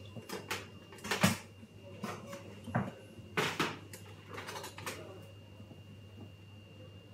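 Kitchen knife knocking on a plastic cutting board as green apples are cut, a handful of sharp knocks, the loudest about a second in, over a steady low hum.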